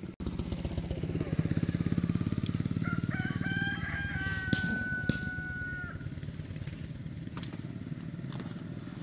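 A rooster crows once, starting about three seconds in, one long held call of about three seconds. Under it a motorbike engine runs steadily, loudest in the first few seconds.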